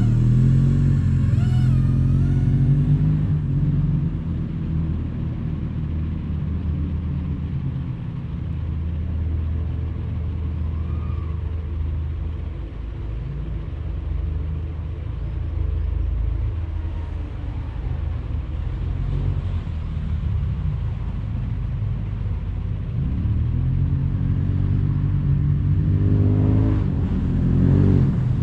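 FPV quadcopter motors and propellers running in flight, a steady hum whose pitch rises and falls with the throttle, growing louder near the end.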